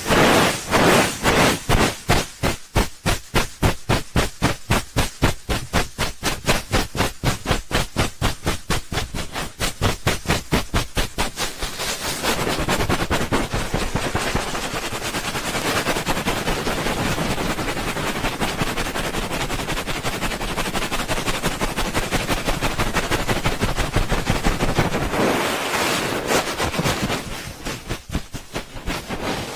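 ASMR 'helicopter' ear rubbing: hands rubbing over the ears of a binaural microphone in fast, even strokes, several a second, giving a choppy helicopter-like whoosh. About twelve seconds in it turns into continuous rubbing, and near the end it slows back into separate strokes.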